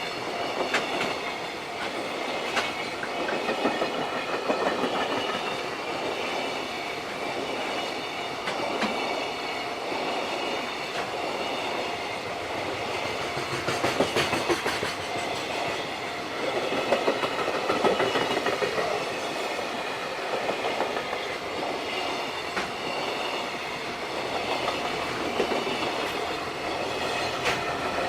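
JR Freight freight train passing close by, its wagons' wheels clattering over the rail joints in a steady run of clicks.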